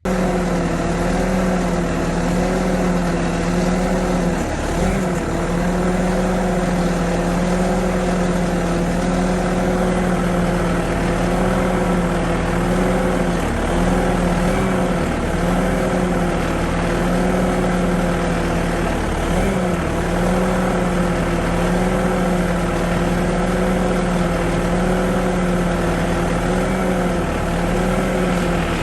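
Bobcat skid steer's Kubota diesel engine running at a steady speed, its pitch sagging briefly three times.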